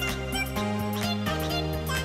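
Background instrumental music: held bass notes that change every second or so, under a run of quick, short higher notes.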